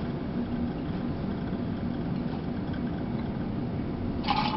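Steady low mechanical hum in the background. Near the end comes a short splash as a jigger of peppermint schnapps is tipped into a stainless-steel cocktail shaker over ice.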